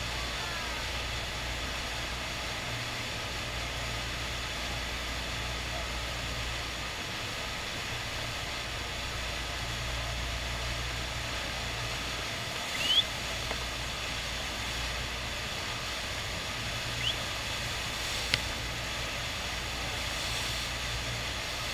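Steady rush of the FlowRider's thin sheet of water pouring up over the riding surface, with a low hum underneath. A few short, high rising chirps and a sharp click come through it past the middle.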